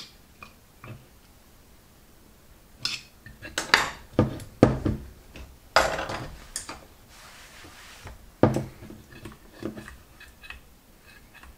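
An alloy carburettor body and small metal carburettor parts clinking and knocking as they are handled and set down on a workbench mat: a quick run of sharp clinks from about three to seven seconds in, another near eight and a half, and light ticks between.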